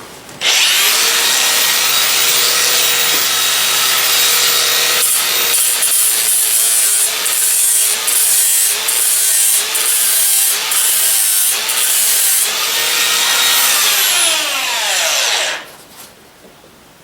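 A power grinder spins up and grinds a horse's hoof in repeated passes, its motor note dipping under load about once a second. It is then switched off and winds down with a falling whine near the end.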